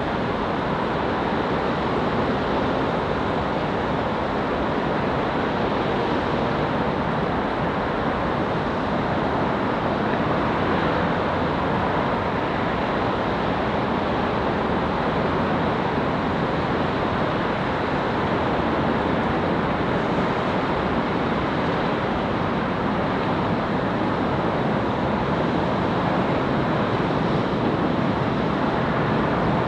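Steady rushing running noise of a Seoul Subway Line 4 electric commuter train, even throughout, with no horn or separate knocks.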